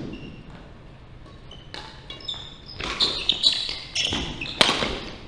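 Badminton doubles rally on a wooden hall floor: rackets hit the shuttlecock several times, with short high squeaks from players' shoes between the hits.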